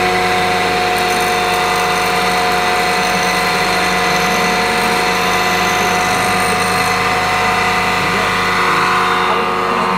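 Electric bench grinder running at full speed with a steady motor hum, as a flat piece of metal is ground against its wheel with a continuous hiss.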